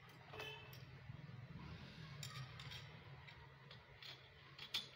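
Faint metallic clicks and clinks of a satellite dish's steel mounting bracket and fittings being handled and fitted together, with one sharper click near the end.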